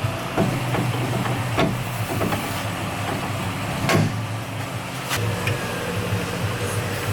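A steady low mechanical hum with several sharp clicks and knocks of tools on metal scattered through it; the loudest knock comes about four seconds in.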